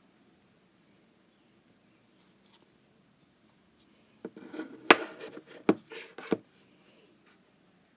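Phones being handled: a quick run of sharp clicks and knocks with some rustling, over about two seconds near the middle, after a few faint ticks.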